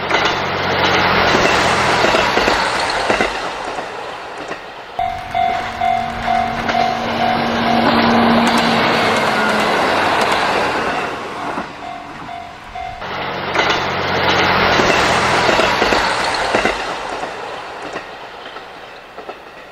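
A train running along the track, loudest in two long passes near the start and about two-thirds through. In between there is a steady pulsing tone.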